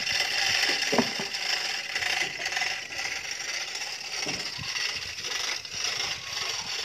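Chain hoist working as a car engine is lifted on it: chains rattling and the hoist clicking continuously.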